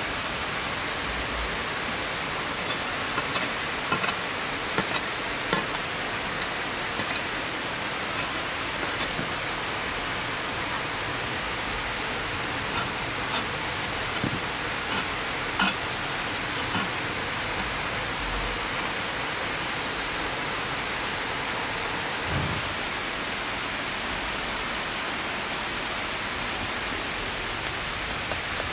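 Steady rushing of a nearby stream, with scattered small clicks and taps from a knife cutting sausage and toppings on the pizza.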